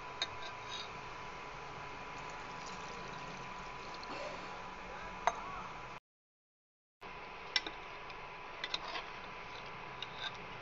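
Chicken curry cooking in a pressure-cooker pot on an induction cooktop: a steady hiss from the pot under a thin, steady high whine from the cooktop, with a few sharp clinks of a steel ladle against the pot. The sound drops out completely for about a second partway through.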